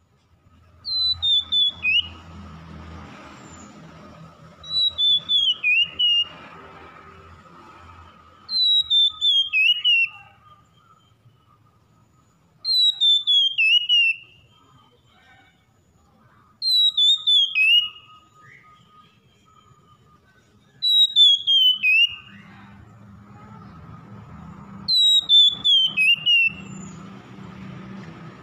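Oriental magpie-robin singing a loud whistled phrase, a quick run of notes sliding down in pitch, repeated seven times about every four seconds. A faint low rumble and hum sit underneath near the start and again near the end.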